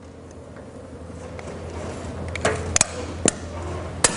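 Tape measure being pulled out and handled against the van's sheet metal: a few sharp clicks and taps from about two and a half seconds in and once more near the end, over a low steady rumble that grows slightly louder.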